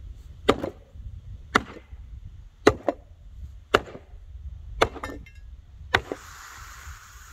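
Axe chopping down on a Glock pistol: six hard blows about a second apart.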